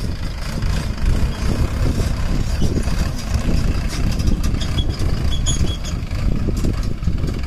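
Mahindra 575 DI tractor's four-cylinder diesel engine running steadily as a low rumble while it pulls a trolley loaded with soil.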